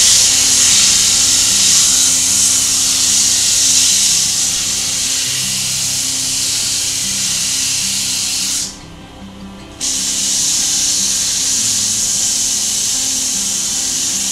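50-grit sandpaper held against wood spinning on a wood lathe: a loud, steady hiss. The hiss stops for about a second about two-thirds of the way through, then starts again. Background music with a slow melody plays underneath.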